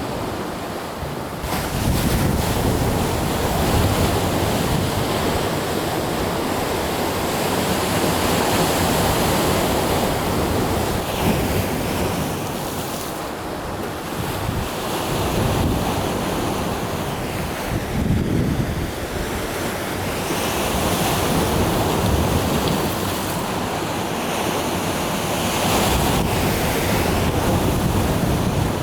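Sea of Japan surf breaking and washing in, swelling and easing every few seconds, with wind buffeting the microphone.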